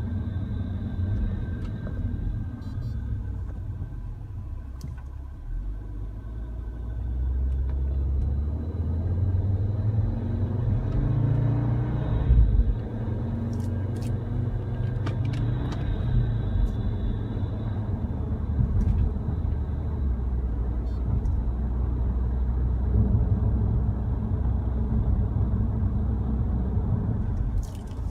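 Cabin noise of an Audi RS Q3 on the move: a steady low rumble that builds and rises in pitch from about seven seconds in, a single sharp knock about twelve seconds in, and a few faint clicks after it.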